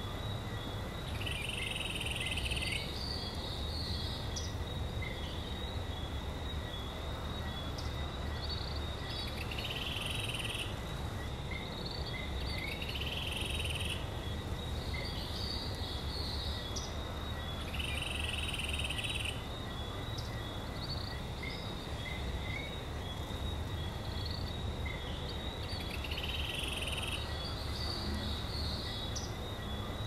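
Rainforest ambience: the steady rush of a waterfall under two continuous high-pitched tones, with short higher calls that recur every few seconds.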